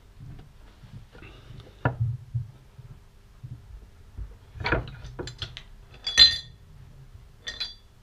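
Metal clinks and knocks from handling a chrome motorcycle fork tube and setting it into a bench vise, with one loud ringing metal clink about six seconds in.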